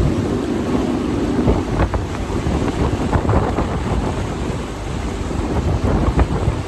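Dinghy outboard motor running under heavy wind buffeting on the microphone, with water noise from the hull.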